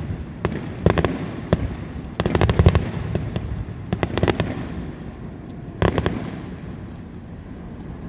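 Aerial fireworks display: a string of sharp bangs and crackling pops, with a dense rapid cluster about two and a half seconds in, more bangs around four and six seconds, thinning out near the end.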